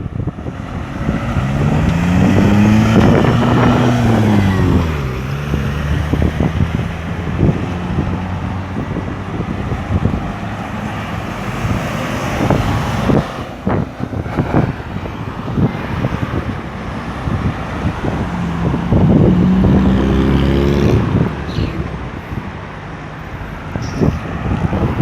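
Road traffic with vehicles passing. One engine's pitch rises and falls a couple of seconds in, and another engine is heard near the end.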